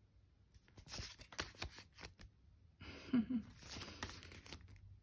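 Sheets of stiff release paper rustling and crinkling as a stack is handled and leafed through by hand, in two bouts: one about a second in and a longer one from about three seconds in.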